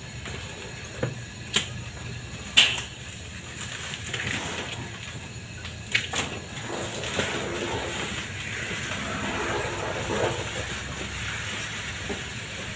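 Sharp metallic clanks and knocks as valves and fittings at the rear of a liquid oxygen tank trailer are handled during unloading; the loudest comes about two and a half seconds in. From about four seconds in, a steady hiss of venting cold vapour builds.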